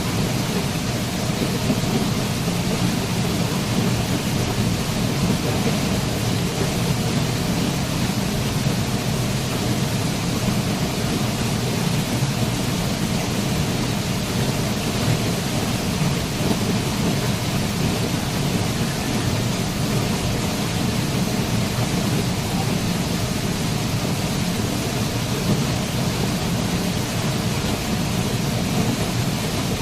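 A waterfall's falling water rushing steadily, heavy in deep low rumble.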